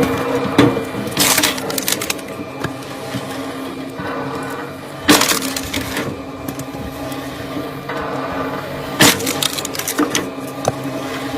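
Firewood cracking and splitting apart: three loud, sharp cracks about four seconds apart, over a steady hum.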